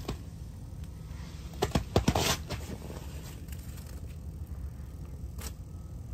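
Handling noise as the caught fish is held: a cluster of sharp knocks and rustles about two seconds in and another short one near the end, over a steady low rumble.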